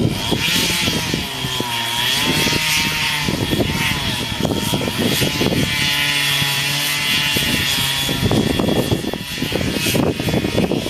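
Chainsaw engine running, its pitch dipping and rising several times as it works under load, with a steady high whine and crackling throughout.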